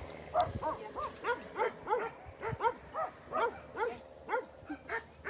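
A puppy yipping and whining over and over, about three short high calls a second, each rising and then falling in pitch.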